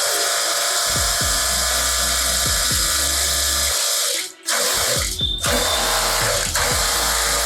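Electric pressure washer running with a steady hiss of motor and spray, under electronic background music with a deep, falling bass beat; everything breaks off briefly about four seconds in.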